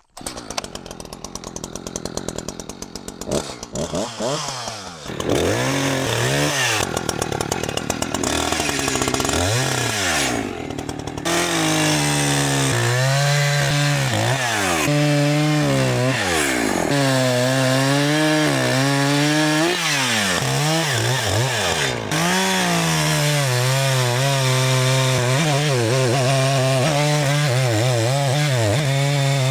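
A Stihl 500i fuel-injected two-stroke chainsaw with a 28-inch bar runs, quieter for the first few seconds. From about five seconds in it runs loud at full throttle, bucking pine, its engine pitch dipping and recovering again and again as the chain bites into the wood.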